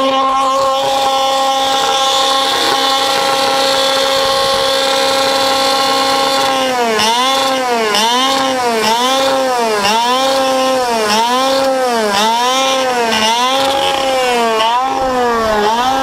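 Engine of a crashed go-kart left running at high revs, a steady high note. From about six and a half seconds in it repeatedly dips and recovers in pitch, roughly every 0.7 seconds.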